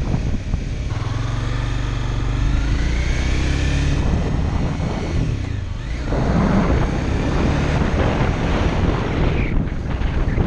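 Wind noise buffeting the built-in microphone of a helmet-top GoPro Hero 4 Session on a moving Honda CBR300R. Over the first few seconds the bike's single-cylinder engine can be heard rising in pitch as it accelerates; from about halfway through, the wind noise swamps it.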